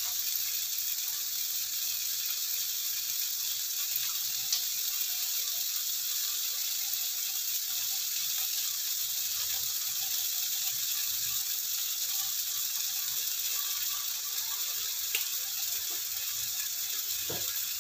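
Beef and steamed eggplant frying in oil in a wok: a steady, fine crackling sizzle.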